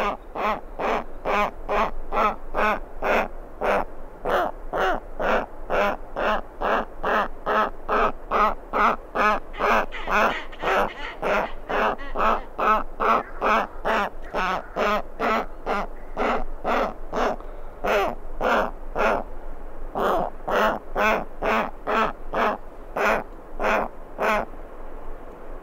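Giant petrel chick begging for food close up: a steady string of rapid, repeated calls, about three a second, with a brief break about two-thirds of the way through.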